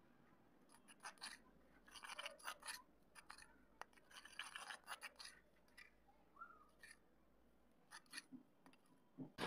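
Metal spoon stirring and scraping a thin wet paste against the inside of a terracotta clay bowl, in short bursts of scratchy scraping with pauses between.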